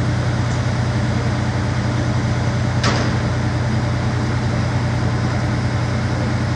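Diesel engine of a 100-ton mobile crane running steadily while holding a suspended load, a constant low drone. A single sharp knock about three seconds in.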